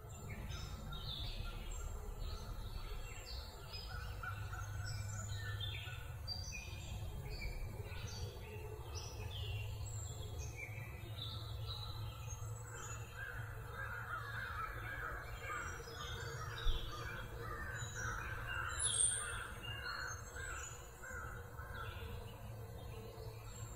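Birds chirping and calling all through, with a denser stretch of rapid, harsher calls in the middle, over a steady low rumble of outdoor background noise. One brief knock about two-thirds of the way in.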